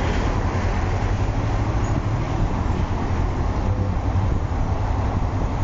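Kawasaki ER-5 parallel-twin motorcycle engine running steadily at low revs as the bike rolls slowly in queueing traffic, heard from the rider's position with steady road and traffic noise around it.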